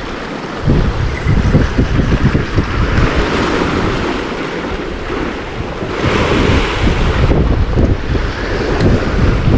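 Sea surf hissing with wind buffeting the microphone in gusts. The surf swells louder about six seconds in for just over a second.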